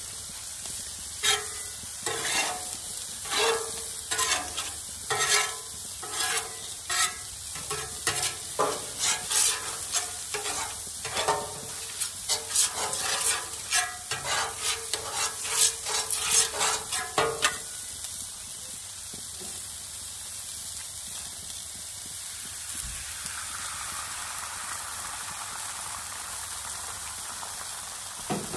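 Metal spatula strokes scraping across the hot steel top of a Blackstone griddle, then a stick of butter rubbed over it and sizzling, one or two strokes a second. About 17 seconds in the strokes stop and a steady frying sizzle carries on, with omelette egg on the griddle by the end.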